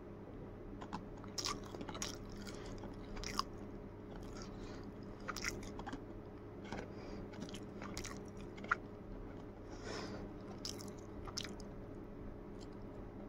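Scattered soft taps and rubs of a fingertip on a boAt smartwatch's touchscreen, with handling noise close to the microphone, at irregular intervals. A steady low hum sits underneath.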